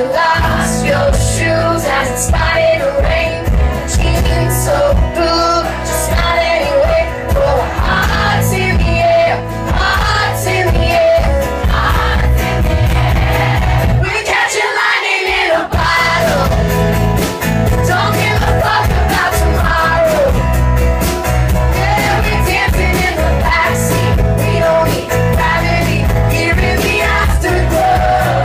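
Live pop-rock band: a male singer over drums, bass and guitar. The drums and bass drop out for about a second and a half near the middle, then come back in.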